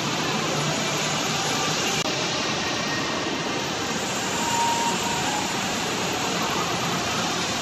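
Steady rushing hiss of water falling from an indoor fountain, an even, unbroken wash of noise.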